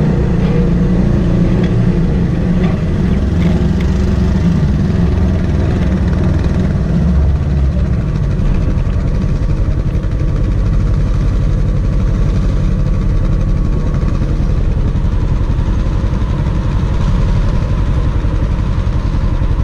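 Side-by-side UTV engine running while driving over a rough dirt trail, then dropping to a steady idle about eight seconds in as the vehicle stops.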